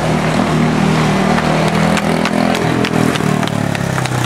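Quarter midget race car's Briggs & Stratton Animal single-cylinder engine running on the track, its pitch rising and falling as the car goes around.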